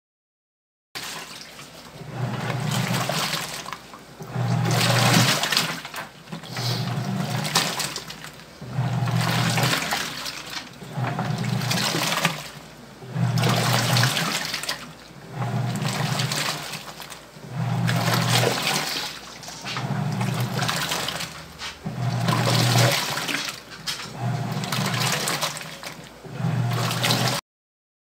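Sharp ES-P68A top-loading washing machine agitating a wash load. The pulsator motor hums in surges about every two seconds as it drives back and forth, churning water and clothes in the tub.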